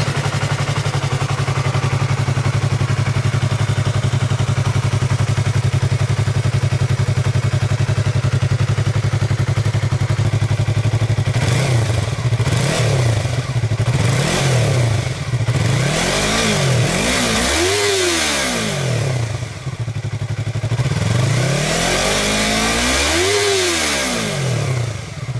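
Yamaha YZF-R3's 321cc in-line twin-cylinder engine idling steadily through its stock exhaust, then revved in a run of throttle blips from about halfway, each rising and falling back. The blips grow bigger, with the highest and longest rev near the end.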